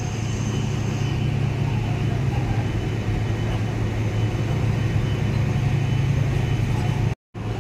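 Diesel engine of a port terminal tractor hauling a container trailer past, a steady low engine drone over a broad rumble. The sound drops out for a moment near the end.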